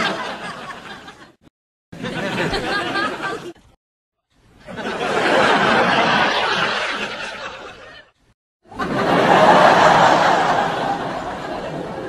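Recorded sitcom laugh track: studio audience laughter played as a run of short separate clips, each breaking out and dying away, with brief silent gaps between. The laughter tails off in the first second or so, then three more bursts follow, the last and loudest about three-quarters of the way through.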